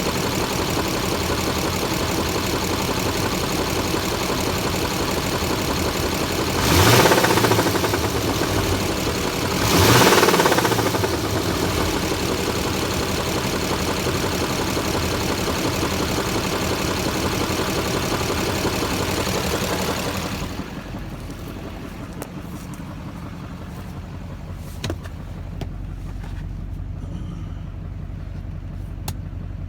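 2006 Duramax 6.6-litre V8 turbodiesel running with a knock whose cause the owner does not know, revved briefly twice about seven and ten seconds in. About twenty seconds in the engine sound drops to a much lower level.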